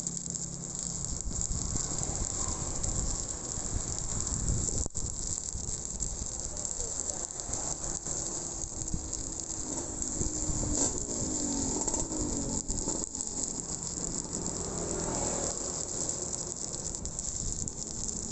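Stick-welding arc from a 7018 electrode on a vertical pipe joint, frying and crackling steadily, with a brief break about five seconds in.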